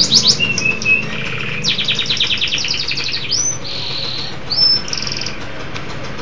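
Domestic canary singing a varied run of rapid trills, short whistled notes and swooping whistles, with a long fast trill about two seconds in.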